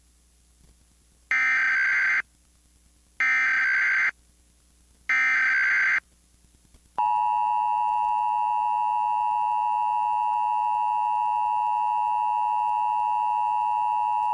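Emergency Alert System signal tones: three short, loud bursts of buzzing SAME header data, about a second each and about a second apart. About seven seconds in, the steady two-tone EAS attention signal starts and holds.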